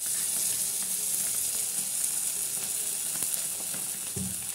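Hot oil sizzling and crackling in a kadai as red chilli sauce is poured into it over frying scrambled egg: a steady sizzle throughout. A brief low thump comes about four seconds in.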